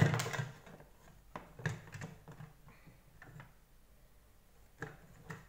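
Plastic housing and parts of a Deerma VC25 vacuum's floor brush head knocking and clicking as it is taken apart by hand: a loud knock at the start, then scattered light clicks and taps.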